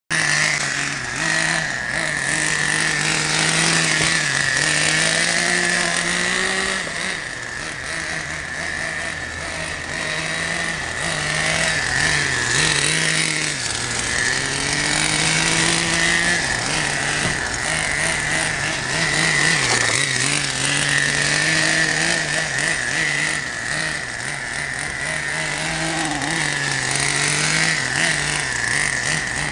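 Taiyo Nitro Max radio-controlled monster truck driving on asphalt: a continuous motor drone whose pitch rises and falls again and again as it speeds up and slows, over a steady high whine.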